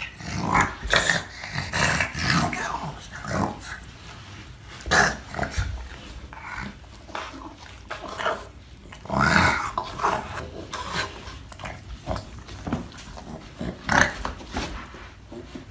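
A small black-and-white dog grunting and growling in short, irregular bursts as it wriggles on its back on carpeted stairs.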